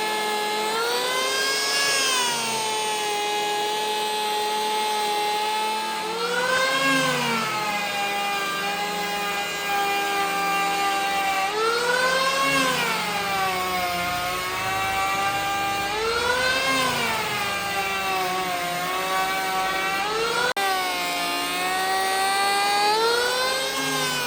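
Electric power tool motor whining as it is worked over wood. Its pitch swells up and drops back about every five seconds as the load on it changes.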